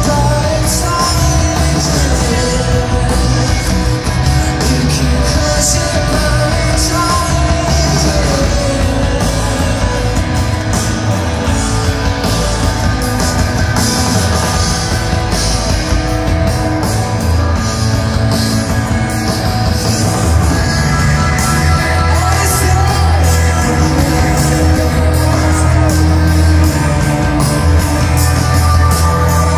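Live rock band performance: guitars, bass and drums with a male lead vocal singing over them. The bass grows heavier about two-thirds of the way through.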